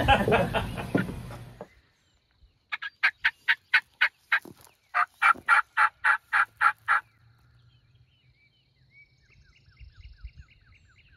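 Turkey calling done by mouth with cupped hands: two runs of short, sharp notes, about four a second, with a brief pause between them. Faint chirping follows near the end.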